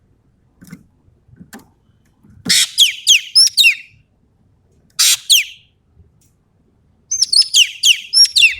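Common green magpie (Sumatran ekek keling) calling in three loud bouts. Each bout is a harsh screech or a run of quick, sharply falling whistled notes.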